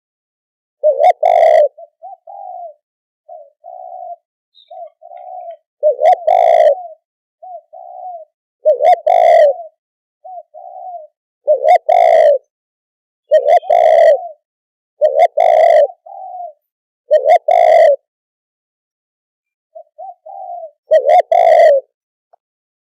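Spotted dove cooing: eight loud coos spaced two to five seconds apart, with softer short coos in between, the call used to lure wild doves to a decoy.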